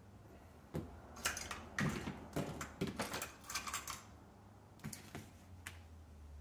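Small spring clips being opened and snapped onto the canvas flaps of a chest rig's magazine pouches, clamping the glued Velcro. A quick run of light clicks and handling rustles, then a few more clicks about five seconds in.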